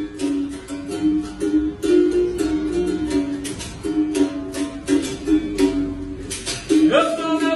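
Capoeira berimbaus playing a rhythmic toque that switches between two or three twanging tones, with sharp clicks and rattles from the percussion. Near the end a man's voice comes in with a long sung note that rises and then holds.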